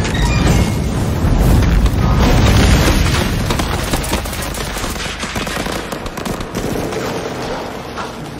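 Battle sound effects: a heavy explosion rumble over the first few seconds and rapid gunfire throughout, dying away toward the end, with film score underneath.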